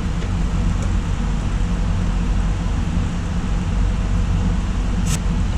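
Steady drone and whir of many cryptocurrency-mining GPU fans running together, with one short sharp click about five seconds in.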